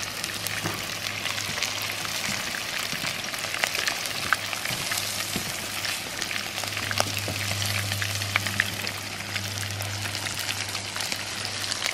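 Rabbit pieces frying in a pan of hot oil: a steady sizzle with many small crackling pops, and a steady low hum underneath.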